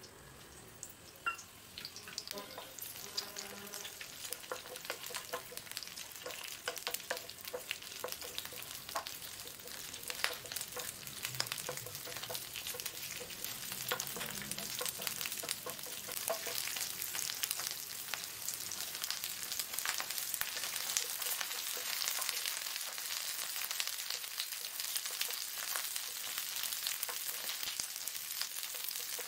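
Chopped onion and green capsicum pieces sizzling and crackling in hot oil in a pan, stirred with a wooden spatula that knocks and scrapes against the pan. The sizzle starts faint, builds over the first couple of seconds as the onions hit the oil, then slowly grows louder.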